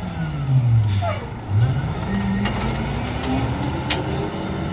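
International rear-loader garbage truck's diesel engine drops from a high rev to idle, then revs up with a steadily rising pitch as the truck pulls away. A short sharp sound comes about a second in.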